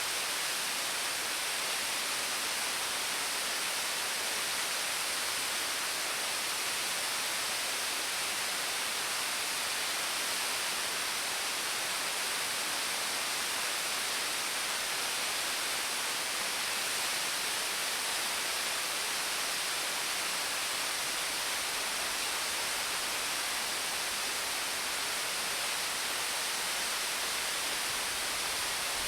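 Steady rush of a waterfall: an even hiss of falling water, mostly high with little low rumble.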